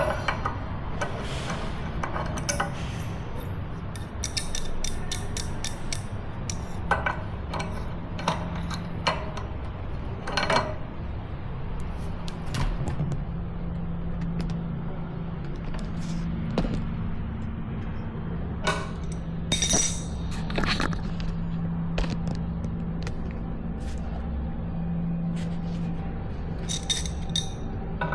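Scattered sharp clicks and knocks over a steady low hum, with busier clusters of clicks about a third of the way in, around two-thirds of the way in, and near the end.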